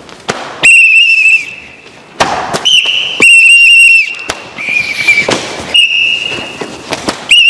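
A whistle blown in five loud blasts of about half a second to a second each, some warbling, with a few thuds between them.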